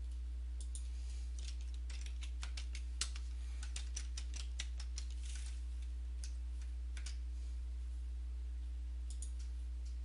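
Computer keyboard typing: a run of quick keystrokes for about seven seconds, then a few more clicks near the end, over a steady low hum.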